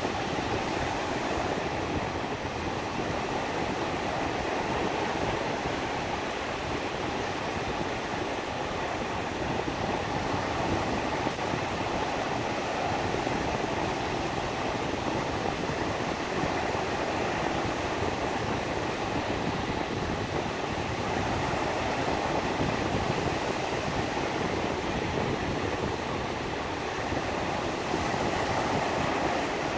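Black Sea surf breaking and washing up a sandy beach: a steady rush of water that swells and eases every few seconds.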